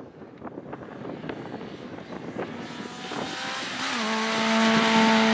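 Citroën Saxo rally car approaching flat out on a loose dirt stage and passing close. The engine grows steadily louder, then holds one steady high-revving note from about four seconds in, over tyre and gravel noise.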